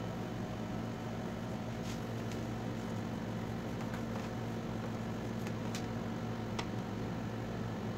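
Steady machine hum of room equipment throughout, with a few faint, light clicks about two to seven seconds in as hands handle the LCD panel's metal frame.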